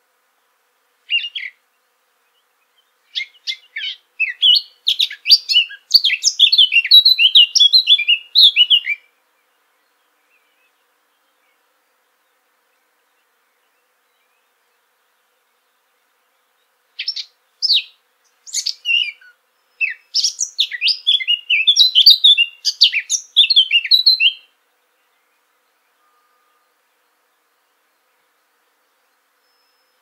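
Blackcap (Sylvia atricapilla) singing: two song bouts. Each opens with a few short separate notes and runs into several seconds of fast, varied warbling. The first starts about a second in and ends around nine seconds; the second starts around seventeen seconds and ends around twenty-four.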